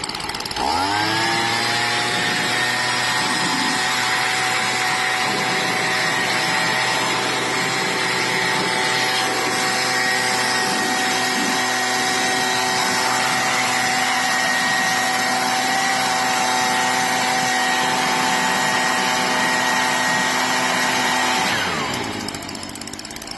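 Small electric motor spinning up, running at a steady whine with a rushing noise for about twenty seconds, then winding down near the end. It is the tool being used to clean the top of the mower deck.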